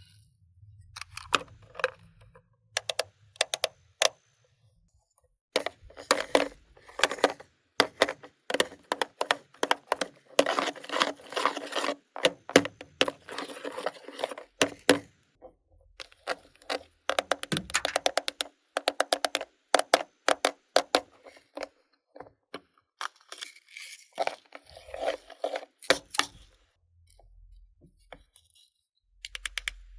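Slime being mixed and squished, giving quick sticky clicks, pops and crackles that come in dense runs with short pauses between them.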